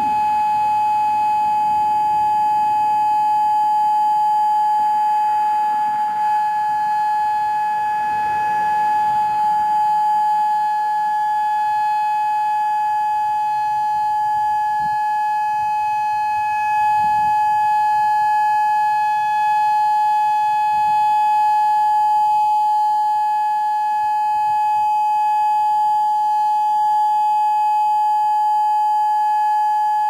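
Federal Signal Modulator tornado siren sounding a steady tone held at one unchanging pitch, during a siren test.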